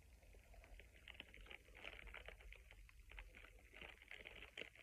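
Faint, irregular crinkling of a clear plastic bag being handled.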